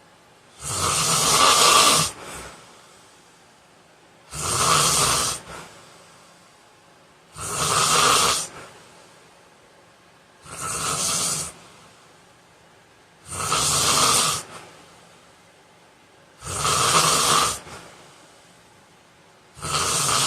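A man snoring loudly in his sleep, about seven snores, each roughly a second long and coming about every three seconds, with quiet between them.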